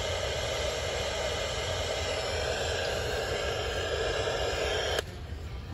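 Sony ICF-C492 clock radio's speaker hissing with static between stations as the dial is tuned. About five seconds in there is a click, and the hiss drops to a quieter level.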